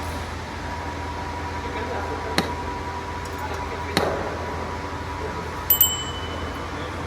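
Sharp metallic clinks, like hand tools knocking against metal: one about two seconds in, another about four seconds in, then a quick pair near six seconds that rings on briefly. A steady low hum continues underneath.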